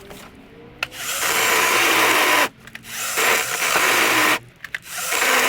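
Worx JawSaw cordless electric chainsaw running in three bursts of about a second and a half each, the first starting about a second in, as it cuts into a holly branch.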